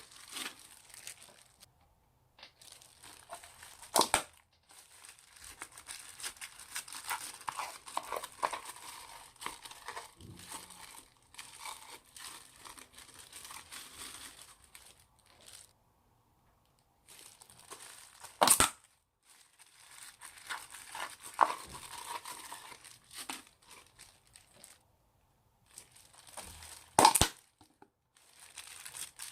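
Hands squeezing, stretching and tearing old slime, giving a steady crackling, crinkling sound with three sharp, loud snaps.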